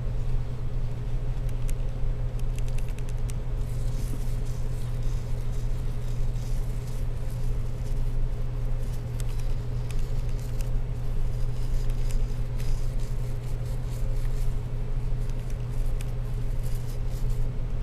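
Toothbrush bristles scrubbing lightly over an alcohol-wetted MacBook logic board to clean off water-damage corrosion: faint scratchy strokes that come and go. Underneath, a steady low hum.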